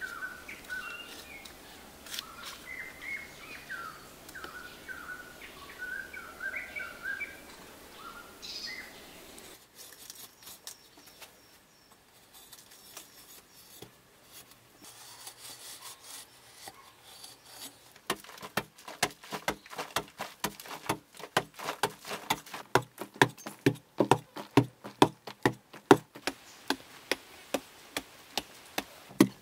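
Birds chirping and singing for the first several seconds. After a quieter stretch, from about two-thirds of the way in, a hand hoe chops into packed earth in quick sharp strikes, two or three a second.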